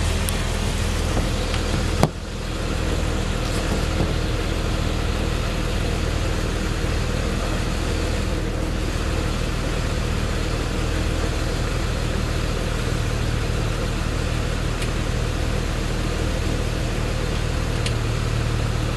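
Jeep Wrangler TJ engine idling steadily, with a single sharp click about two seconds in.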